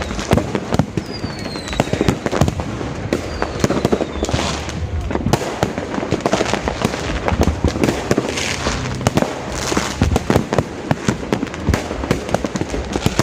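Fireworks going off: a dense, continuous run of bangs and pops, with two thin falling whistles in the first few seconds.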